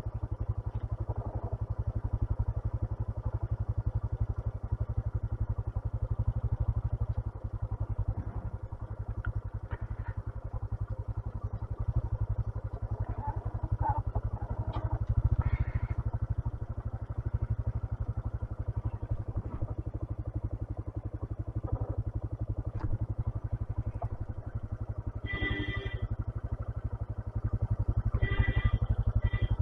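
A 125cc motorcycle's engine running steadily as it is ridden. Short high-pitched tones sound about three-quarters of the way through and again near the end.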